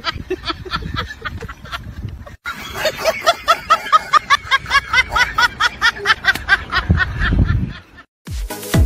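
Hard, high-pitched laughter in fast repeated bursts, about four or five a second, breaking off briefly about two and a half seconds in. Near the end it cuts off and electronic dance music with a steady beat starts.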